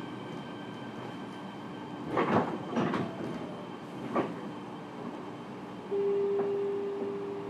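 Inside a Fukuoka City Subway 1000N series electric train car: a steady hum from the car's equipment, then two rushing sounds in quick succession about two seconds in, as the passenger sliding doors move, and a sharp knock about four seconds in. About six seconds in, a steady tone comes on and holds.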